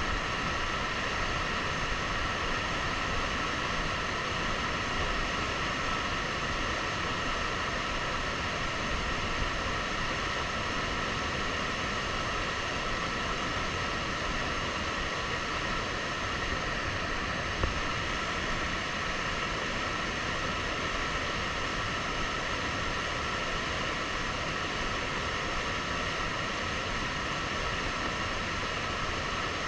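River water rushing steadily, with a single short tick about eighteen seconds in.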